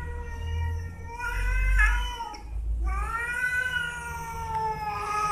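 Domestic cats in a face-off yowling: two long, drawn-out threat yowls, the second one sliding slowly down in pitch.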